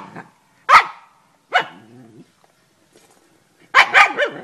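Dog barking in short, sharp barks: single barks about a second apart, then two quick barks near the end.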